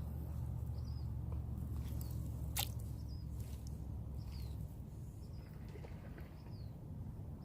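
Quiet outdoor ambience: soft high chirps repeating about once a second over a low rumble that fades out about two-thirds of the way through, with one sharp click just past two and a half seconds.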